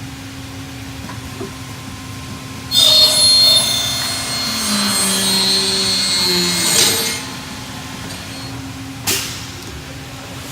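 Miter saw cutting through a metal pressure bar: the blade screeches and rings through the cut for about four seconds, then the motor winds down in falling pitch. A single sharp knock follows near the end.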